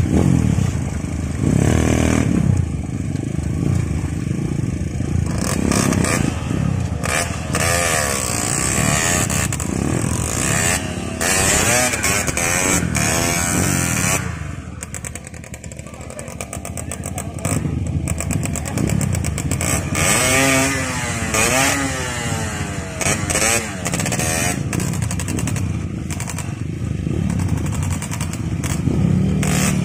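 Several off-road dirt-bike engines revving unevenly, their pitch rising and falling repeatedly as the bikes are worked through a shallow river crossing, with water splashing around the wheels.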